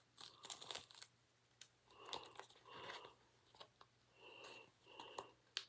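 Faint crinkling, scratching and small clicks of plastic shrink-wrap being picked and peeled off a DVD case, in short irregular bits with a few brief squeaks.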